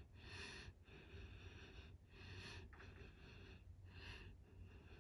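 Near silence: room tone with faint, soft hissing swells about once a second.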